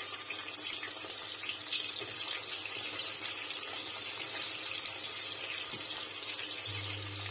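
Sliced onions sizzling steadily in hot oil in a pressure cooker.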